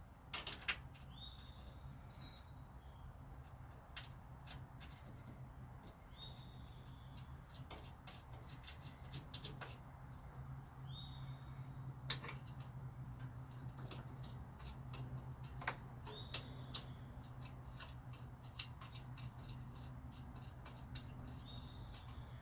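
A bird calling in the background: one short chirp repeated about every five seconds, over a low steady hum, with scattered light clicks and taps.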